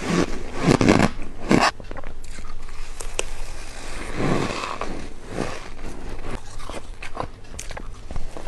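Close-miked bites into hard white ice, each a loud crunch with the ice cracking and crackling between the teeth. A cluster of loud bites comes in the first second and a half and another about four seconds in, with smaller crackles and snaps in between.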